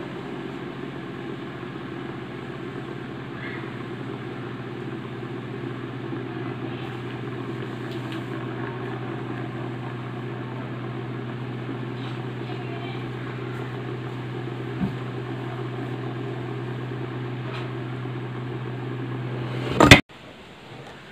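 Small CD-drive DC motor belt-driving a metal flywheel pulley, running with a steady low hum. Near the end a loud knock, after which the running sound stops abruptly.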